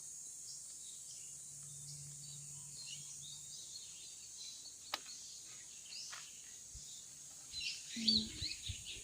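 Garden ambience: small birds chirping on and off, busier near the end, over a steady high insect drone, with one sharp click about five seconds in.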